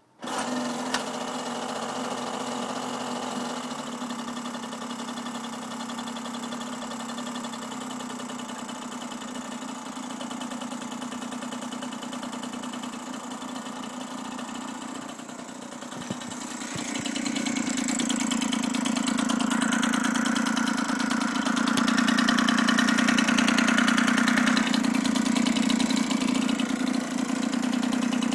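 Gamefisher 1.2 hp outboard motor starting up suddenly and running steadily at a low speed, then speeding up and running faster and louder from a little past halfway.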